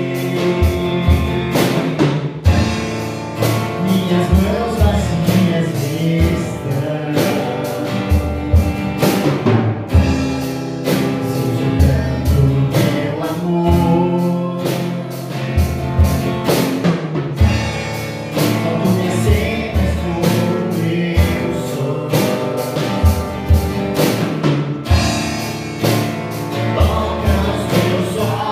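Live Christian worship music: singing with acoustic guitar chords over a regular low beat.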